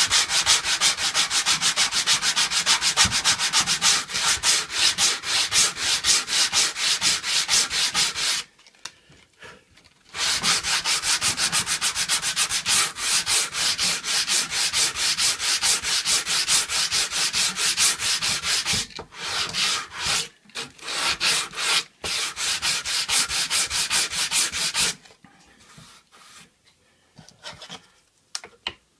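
Hand sanding of wood with sandpaper wrapped on a block: rapid back-and-forth strokes in long runs, with a break of about two seconds about a third of the way in. The sanding comes in shorter bursts past the middle and stops a few seconds before the end, leaving only a few faint ticks.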